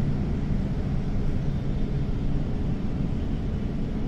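Samco City H76 CNG bus running at a steady pace: a continuous low engine drone mixed with road noise.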